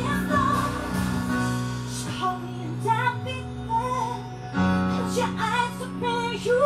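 A woman sings a song live through a PA, over sustained chords from a Roland electronic keyboard that change every second or two.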